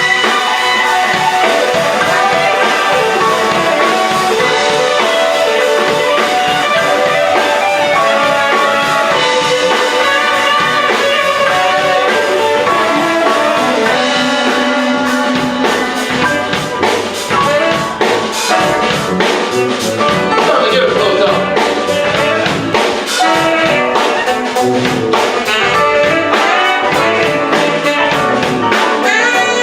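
Live band playing a blues-jazz number: electric guitar, a horn section of tenor sax and trombones, keys, bass and drums. The drumming gets busier about halfway through.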